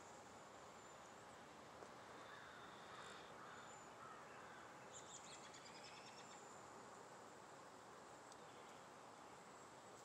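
Faint songbird chirps and short whistled calls over a quiet outdoor hiss, with a few gliding notes about two seconds in and a quick run of chirps around five seconds in.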